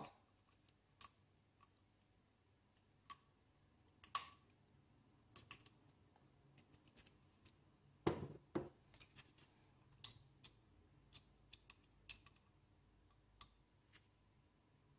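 Faint scattered clicks and light knocks of a screwdriver working a screw into the metal piston of a Webley Junior air pistol, tightening the screw that holds the new piston seal. Two louder knocks come about eight seconds in.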